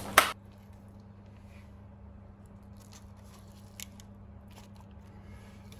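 A sharp knock right at the beginning, then faint soft scrapes and clicks of metal spoons scooping thick muffin batter into paper liners in a muffin tin, over a low steady hum.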